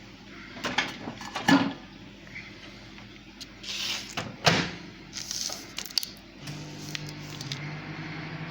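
Microwave oven being loaded and shut: scattered clicks and knocks of the dish and door, and a sharp click of the door closing about four and a half seconds in. About two-thirds of the way through, the microwave starts and runs with a steady hum.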